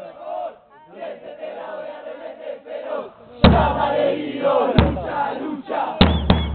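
Many voices shouting together like a chanting crowd, with loud thumps about three and a half and five seconds in and two more near the end.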